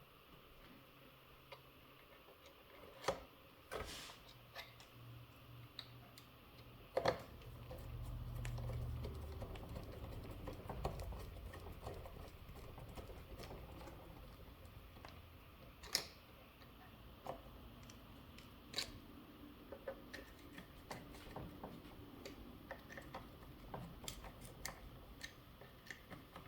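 Small metal screws and parts of an RC loader's track assembly clicking and tapping as screws are set in by hand with an Allen key: scattered light clicks, with a low rumble of handling about a third of the way in.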